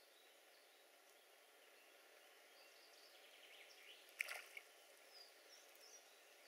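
Faint pond ambience with scattered bird chirps. About four seconds in comes a short splash, the loudest sound, as a spawning crucian carp breaks the duckweed-covered surface, followed by a couple of smaller splashes.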